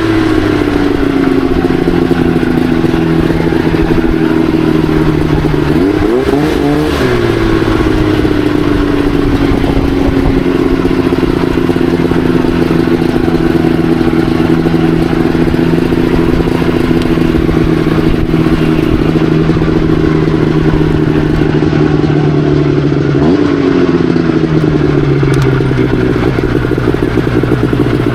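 Crosskart buggy's engine running steadily, revving up briefly about six seconds in and again near the end, its pitch easing slowly down in between.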